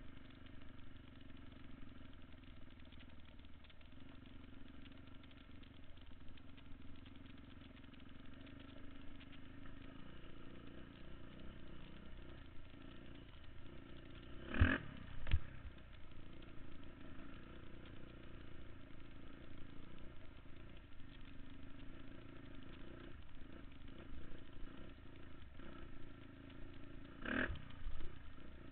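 Off-road vehicle engine running steadily under way, muffled, with sharp knocks: two about halfway through, under a second apart, and one more near the end.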